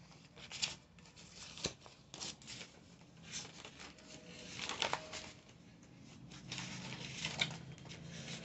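Pages of a paperback sticker book being turned and handled: irregular soft paper rustles and flicks, with one sharp tap about one and a half seconds in.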